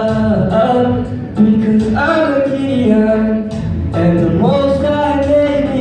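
A man singing with musical backing: long held notes that slide up and down into the next pitch.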